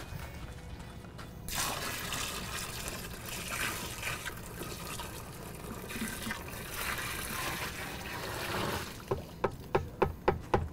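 Liquid polymer poured from a plastic bucket into a plastic trash can that already holds the first half: a steady pour of about seven seconds. It is followed near the end by a quick run of sharp ticks.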